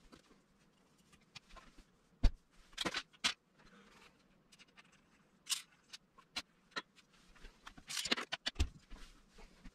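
Clicks, knocks and short scrapes from handling a rifle and a metal cleaning rod, as the rod is run down the barrel from the muzzle to knock a bullet stuck in the chamber back out. The sharpest click comes about two seconds in, with bursts of rattling around three seconds and again near eight seconds.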